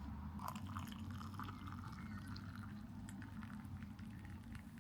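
Liquid being poured, a steady rushing with small irregular clicks and drips.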